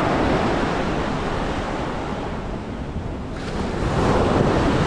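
Ocean surf breaking and washing up the sand, with wind on the microphone. The wash eases about three seconds in, then a wave swells up again near the end.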